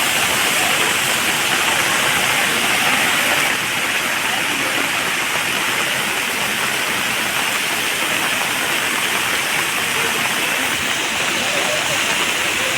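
Loud, steady rush of water, a little quieter from about three and a half seconds in.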